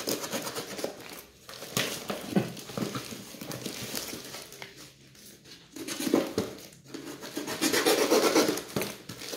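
Cardboard box and packing tape being torn open by hand: irregular ripping and crinkling in uneven bursts, loudest toward the end.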